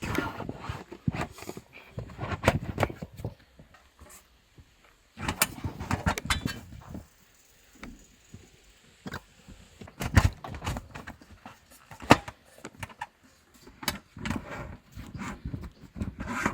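Clattering and knocking from boat parts being handled during assembly, in irregular bursts, with one sharp knock about twelve seconds in.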